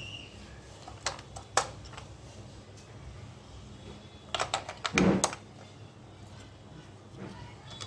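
Hard plastic clicks and knocks from handling a battery-operated toy train: two sharp clicks about a second in, then a quick run of clicks and a louder knock around five seconds in.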